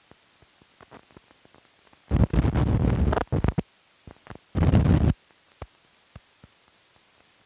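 Old film soundtrack running over blank leader: scattered clicks and pops from dust and scratches, with two loud bursts of crackling noise, one about two seconds in lasting a second and a half and a shorter one about four and a half seconds in.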